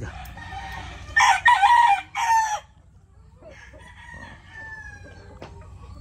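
A gamefowl rooster crowing once, loudly, starting about a second in and lasting about a second and a half with a short break near its end. Fainter chicken clucks and calls follow.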